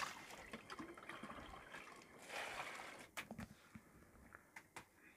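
Faint water trickling, with a short louder rush a little over two seconds in and a few light knocks in the second half.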